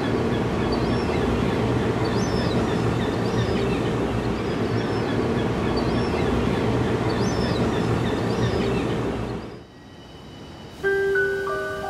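A loud, steady, dense rumble with a few held tones runs until it fades out about nine and a half seconds in. A second later a music track begins with a bright run of stepping, falling notes.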